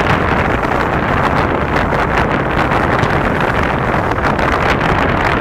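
Steady, even rushing noise with no breaks and no firework bangs in it.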